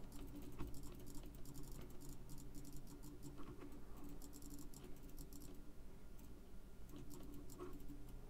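Quick, light clicks of a computer mouse, many in a row, as edges are shift-clicked one after another, over a faint steady hum.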